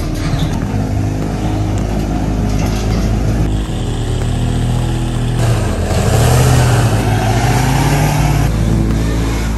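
Lifted diesel pickup's engine running under heavy load while towing a chained bundle of four large tractor tyres, getting louder and revving higher about halfway through; black smoke from the stack marks it working hard.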